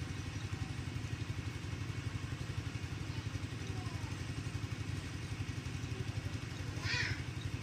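A small engine idling steadily, low in pitch with a fast even pulse; a brief rustle about seven seconds in.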